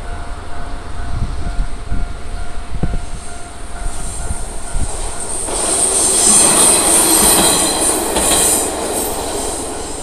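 A diesel railcar crosses a level crossing, and its wheel noise swells about five and a half seconds in, with high wheel squeal, then fades after about nine seconds. A level-crossing warning bell rings steadily beneath it.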